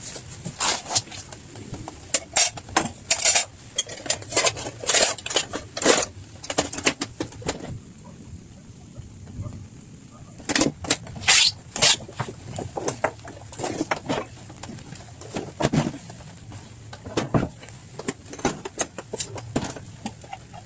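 Irregular clatter of short knocks and clinks in uneven bunches, with a quieter pause of about two seconds a little before the middle.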